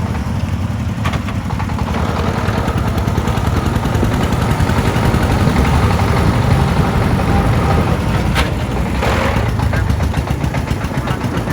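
Single-cylinder diesel engine of a công nông farm truck running under way, a rapid, even chugging beat that swells a little midway.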